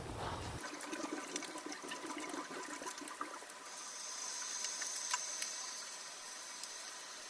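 Faint running water: a steady hiss with many small splashes.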